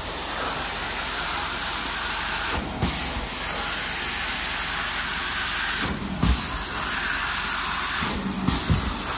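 Carpet extraction stair tool spraying hot water into stair carpet and vacuuming it back up: a steady hiss of spray and suction, broken three times by short dips with low knocks.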